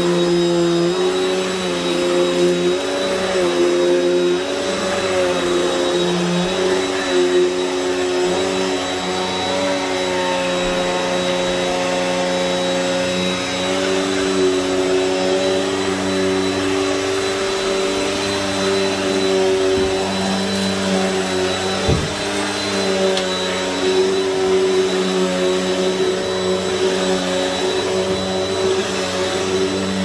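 Bissell PowerForce Helix upright vacuum cleaner running on carpet: a steady motor hum with a thin high whine. Its pitch shifts up and down over the first several seconds, then holds steadier. There is a single knock about two-thirds of the way through.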